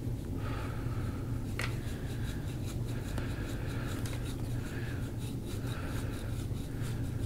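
Fingers pressing and rubbing over the skin of a man's neck during soft-tissue massage: short, soft scratchy friction strokes, with one sharp click about a second and a half in, over a steady low hum.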